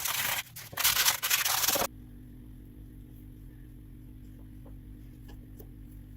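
Hand sanding or rubbing, in quick abrasive strokes with short breaks between them. It cuts off sharply about two seconds in, leaving a quieter low hum with a few faint ticks.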